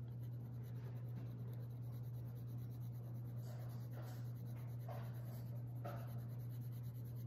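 Fine-tip Sharpie marker scratching over a small painted cutout in a few faint short strokes, mostly in the second half, over a steady low hum.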